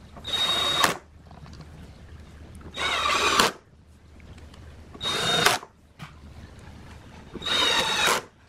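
Power drill run in four short bursts, each under a second, with a high motor whine that bends in pitch as it spins up and slows.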